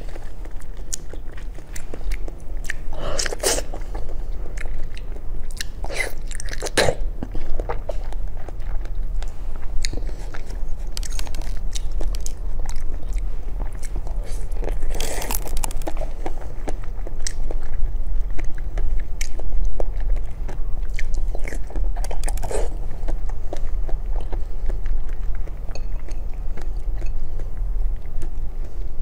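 Biting into and chewing a jelly-covered strawberry, with a few louder bites spread through the chewing.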